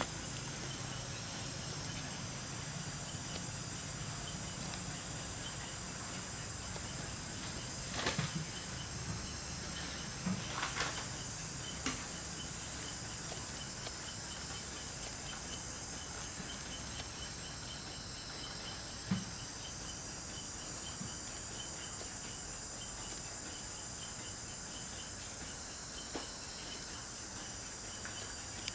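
A steady high-pitched chorus of insects, with a fast, even pulsing chirp running beneath it. A few brief faint knocks come at scattered moments.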